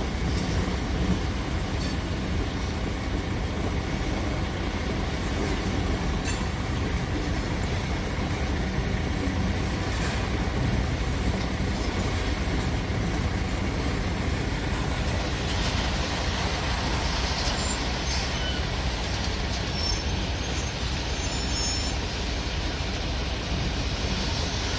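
Freight train rolling past with a steady, heavy rumble of its wagons, with short high-pitched squeals in the second half.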